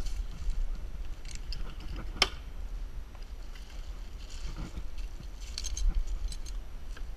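Rustling of a Washingtonia palm's dry dead fronds and clinks of metal climbing hardware as the climber moves, over a steady low rumble of wind on the microphone; one sharp click about two seconds in.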